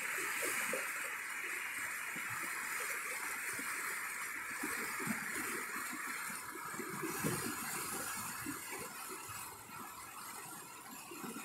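Muddy floodwater rushing down a normally dry desert wash during a monsoon flash flood: a steady rush with a churning, gurgling undertone, fading somewhat near the end.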